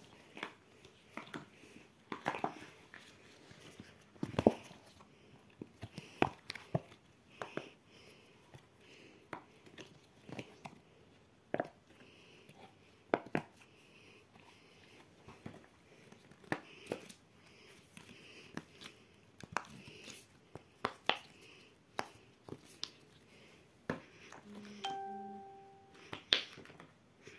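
Silicone pop-it fidget toy bubbles being pressed one after another, giving soft, irregular popping clicks. A brief steady tone sounds a little before the end.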